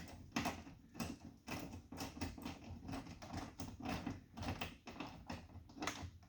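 A screw being driven into the bottom of a truck's door panel: a run of irregular light clicks and ticks, several a second.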